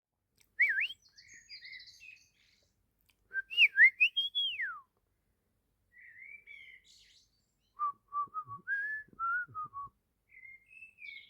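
Songbirds singing. Loud, clear whistled phrases swoop up and down, with quieter twittering between them and a run of lower warbled notes in the second half.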